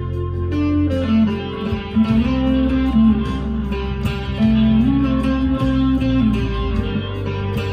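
Harley Benton SC Custom II electric guitar through an amp's crunch channel, playing a lightly overdriven single-note lead line with string bends about two seconds in and again near five seconds.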